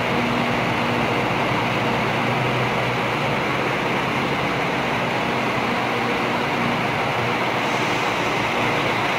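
Volvo B11R double-decker bus's six-cylinder diesel engine running as the bus moves slowly, heard as a steady, even rushing noise.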